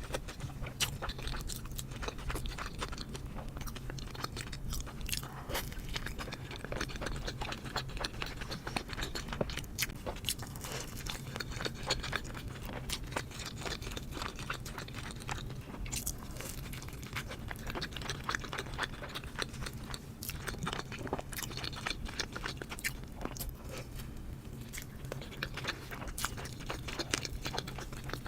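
Close-miked eating: continuous chewing with crunchy bites and many small wet mouth clicks, over a steady low hum.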